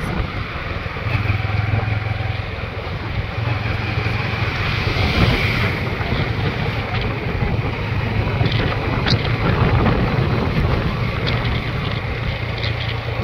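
Wind rushing over the microphone during a ride, over the steady low drone of a motorcycle engine running under way.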